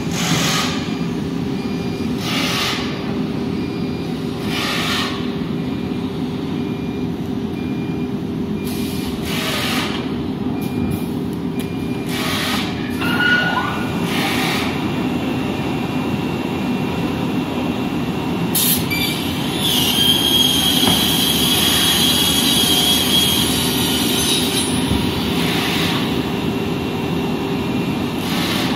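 CNC four-side wood board cutting machine running, its vacuum blowers and dust extraction making a steady hum with a constant tone. Short hisses come every couple of seconds in the first half, and a louder, high-pitched whine with added noise comes about two-thirds of the way through as the cutting heads work.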